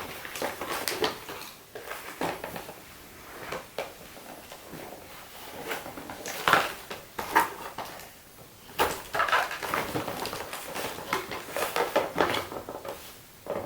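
Toy packaging being handled as a doll is worked out of its box: irregular rustling, scraping and small knocks and clicks.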